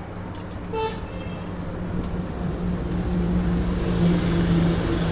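A motor vehicle's engine hum grows louder over the last few seconds, with a short horn toot about a second in.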